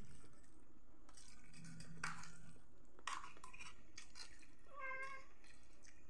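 Noodles being eaten with forks from a metal tray: chewing and slurping, with forks clicking against the tray about two and three seconds in. A short high-pitched call is heard about five seconds in.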